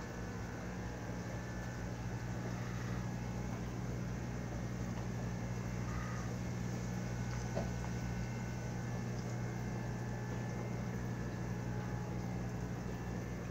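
Aquaponics system's pump running with a steady low hum.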